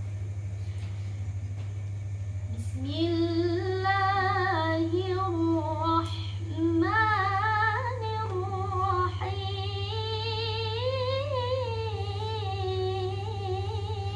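A girl reciting the Qur'an in maqam Nahawand, the opening 'original' Nahawand phrase. She sings it in long, ornamented held phrases that begin about three seconds in, with brief breaks for breath near six and nine seconds. A steady low hum runs underneath.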